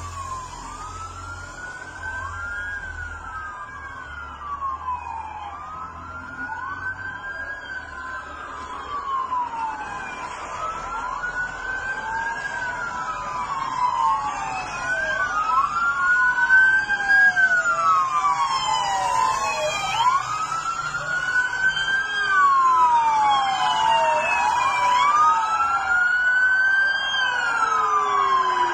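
Several emergency vehicle sirens wailing at once, their rising and falling tones overlapping, growing louder from about halfway through as the convoy approaches.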